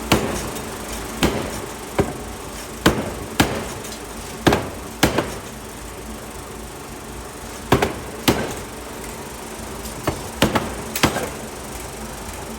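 Hammer blows striking metal in a forge, about a dozen at irregular spacing, several in quick pairs, each ringing briefly, over a steady machine drone.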